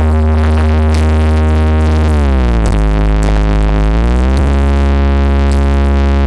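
Loud electronic dance music played over a big carnival sound system: a held, deep synthesizer bass note that slides down in pitch about two seconds in and back up about four seconds in.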